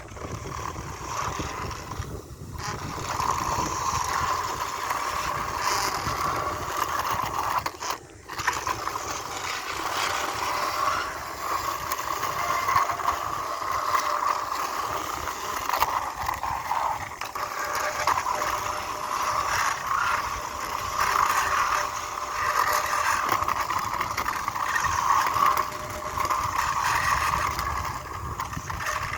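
Toy bulldozer's small motor and gearbox whirring steadily as it runs along, with a brief break about eight seconds in.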